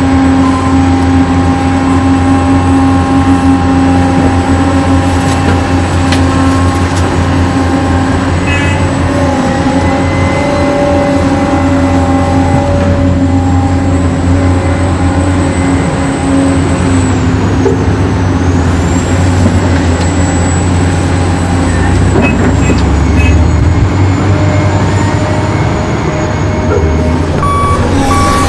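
Remote-control toy dump truck and excavator running, a steady truck-engine drone with a faint high whine that dips twice past the middle.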